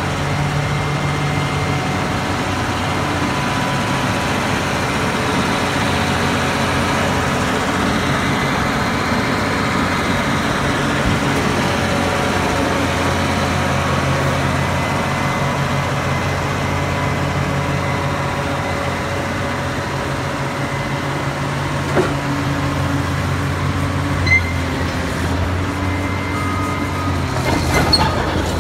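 Caterpillar D6R LGP crawler dozer's diesel engine running steadily, with the rattle of its steel tracks and undercarriage. A single sharp metallic knock comes about two-thirds of the way through, and a few clicks near the end.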